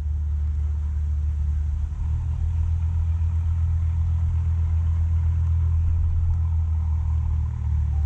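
A steady low rumble, level and unbroken throughout.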